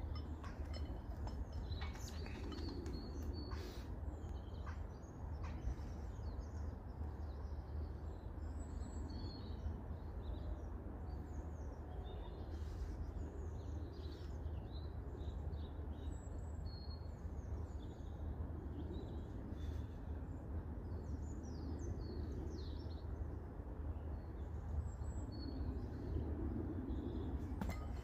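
Small birds chirping and singing at intervals over a steady low outdoor rumble, with a few sharp clicks in the first few seconds.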